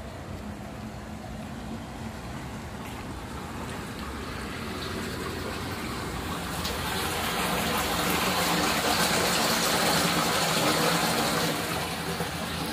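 Storm water rushing through the sewer beneath a dislodged square manhole cover, the drain running full after a cloudburst. A steady rushing that grows louder from about four seconds in.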